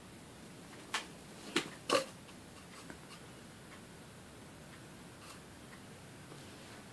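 Three short, sharp taps or knocks in quick succession about a second in, the last one loudest, then faint room tone.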